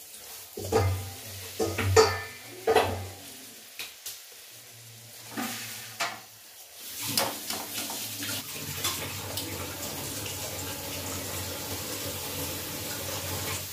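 Puris frying in hot oil in a kadai, with a perforated metal skimmer knocking and scraping against the pan several times in the first half. After that comes steady sizzling of the oil.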